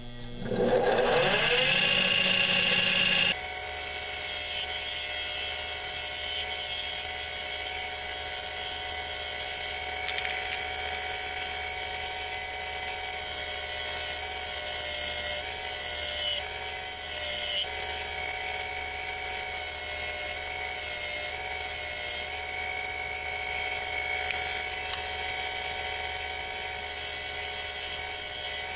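Harbor Freight mini lathe motor spinning up, its whine gliding upward in pitch over the first second or two. Its sound changes abruptly about three seconds in, and then it runs steadily at speed with a high whine, the pitch wavering slightly a few times midway.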